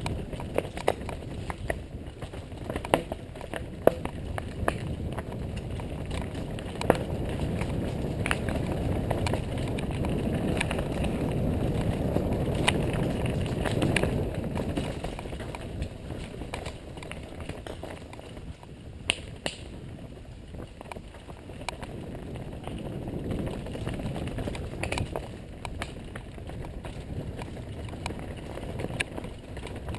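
Downhill mountain bike rolling down a dirt trail: a steady rumble of tyres and air, with frequent sharp clacks and rattles as the bike goes over rough ground. The rumble builds about ten to fourteen seconds in and eases off near twenty seconds.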